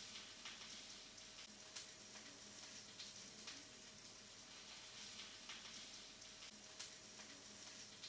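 Faint steady sizzling of food frying in a pan of hot oil, with a few sharp crackles now and then.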